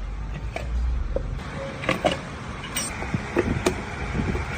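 Scattered light clicks and knocks of metal parts and hand tools being handled during engine assembly, over a low rumble that stops about a second and a half in.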